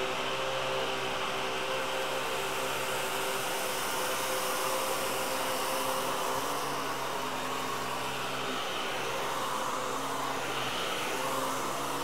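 Miele Triflex HX1 cordless stick vacuum running steadily on its third suction setting as its electrobrush is pushed back and forth over thick-pile carpet. A rush of air sits over a steady motor hum that shifts slightly in pitch about halfway through. At this setting the suction is strong enough to make the head drag in the pile.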